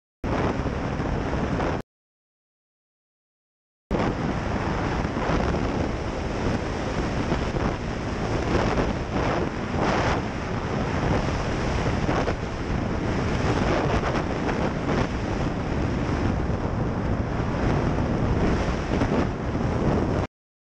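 Heavy wind buffeting on the microphone of a Jawa Jawa motorcycle being ridden flat out on a top-speed run. The sound drops out to dead silence for about two seconds near the start, then carries on.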